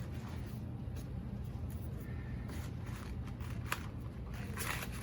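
A knife cutting kale on a cutting board: a few irregular taps and scrapes over a steady low hum.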